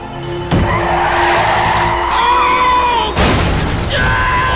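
Car tyres squealing in a hard skid, starting suddenly about half a second in with wavering, bending pitch. A short, loud crash-like burst comes about three seconds in, then the tyres squeal again.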